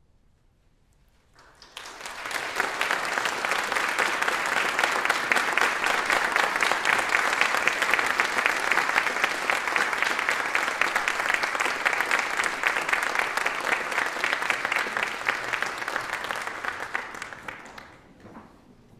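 Audience applauding: a short silence, then clapping that starts about a second and a half in, holds steady, and dies away near the end.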